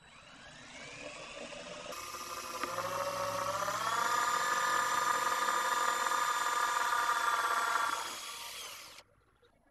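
Cordless drill boring holes through an aircraft firewall for the engine mount. The motor's whine climbs in pitch over the first few seconds, holds steady, then winds down and stops about nine seconds in.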